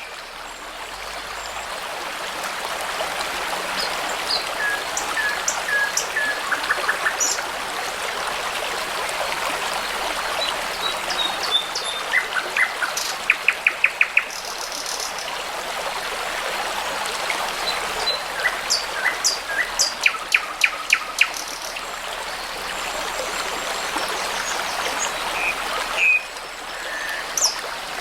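A brook babbling steadily with songbirds singing over it: scattered chirps and whistles, and quick runs of repeated notes about halfway through and again about two-thirds of the way in.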